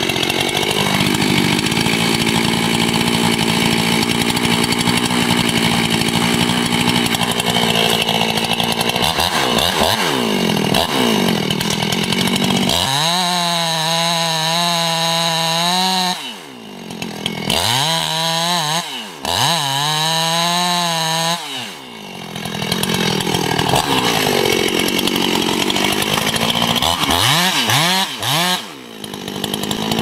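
Chainsaw cutting into the trunk of a huge tree during felling, the engine held at high speed under load. Its pitch wavers from about the middle on, and it briefly drops off and revs back up several times.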